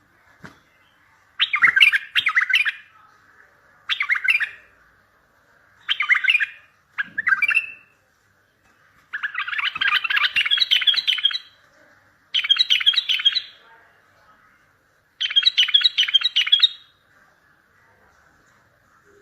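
Bulbul singing: about seven short bursts of quick, warbling song phrases a second or two apart, the longest lasting about two seconds, over a faint steady background noise.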